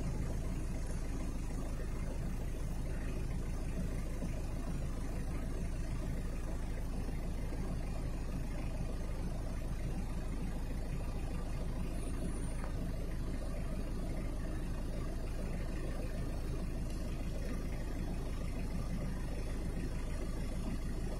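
Steady wind blowing across the microphone, a constant low rumble strong enough to keep a paraglider wing inflated overhead.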